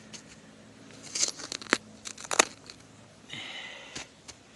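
Digging in soil with a hand tool: crunching and scraping of dirt with several sharp strikes, the loudest about two and a half seconds in.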